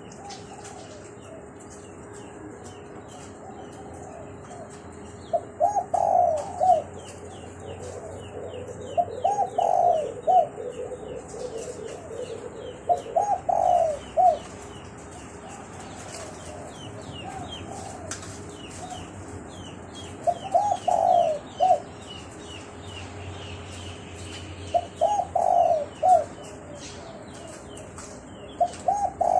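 A dove cooing in short phrases of several quick notes, one phrase about every four seconds. Small birds chirp rapidly in the background, over a faint steady hum.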